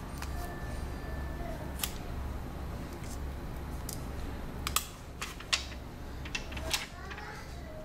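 Fingers handling a Huawei Ascend Mate smartphone and picking at the clear protective film on its back, giving a scattering of short sharp clicks and taps, most of them in the second half. A low steady hum runs underneath.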